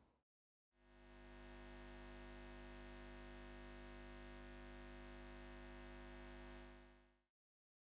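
Faint, steady electrical hum that fades in about a second in and fades out near the end.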